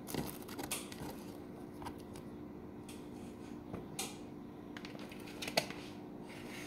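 Light, scattered clicks and taps of a kitchen knife and cucumber slices on a wooden cutting board and plate as cut vegetables are gathered onto the plate, with one sharper click a little past halfway. A steady low hum runs underneath.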